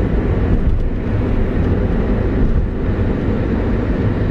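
Steady low rumble of tyre and engine noise inside a car driving along a highway.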